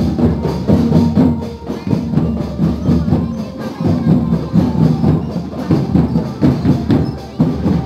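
Music with a steady percussion beat, with tambourine-like jingles and knocks, accompanying a marching street parade.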